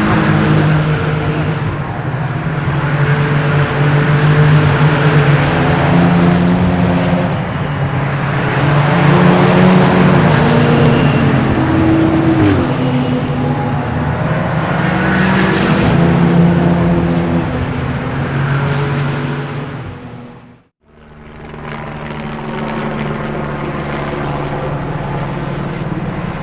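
Race cars' engines running hard past the track, one after another, their notes rising and falling as they pass. About three-quarters of the way through the sound cuts out briefly, then a steadier engine note returns.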